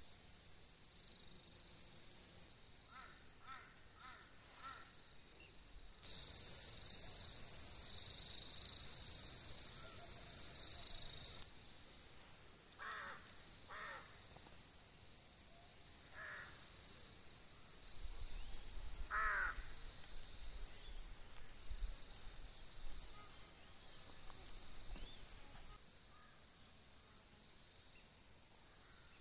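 Insects chirring in a steady high drone, with a few short bird calls scattered through, the clearest about two-thirds of the way in.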